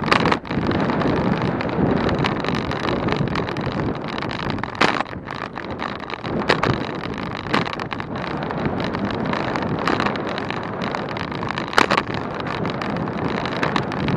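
Wind rushing over the microphone and the rolling noise of a road bicycle ridden at speed, with several sharp knocks along the way.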